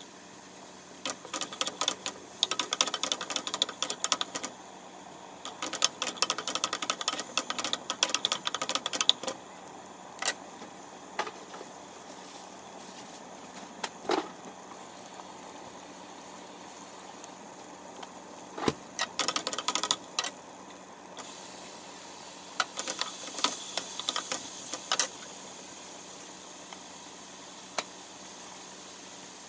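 Onions, garlic and ginger frying in oil in a nonstick pan, crackling and spitting in bursts of rapid pops under a steady sizzle that grows louder about two-thirds of the way through. A few single knocks are heard, one of them with a short ring.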